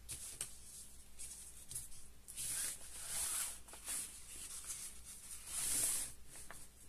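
Waterproof raincoat fabric rustling as it is slid and smoothed across a worktable, in a few short swells.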